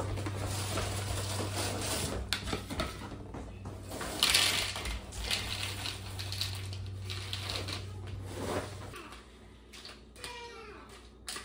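A cereal box and its inner bag rustling open, then Honeycomb cereal poured into a plastic bowl with a dry rattle, loudest about four seconds in. A steady low hum runs underneath and stops about nine seconds in.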